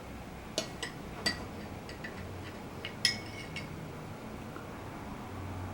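A series of light clinks and taps from small hard objects being handled, the loudest about three seconds in with a brief ring, over faint room noise.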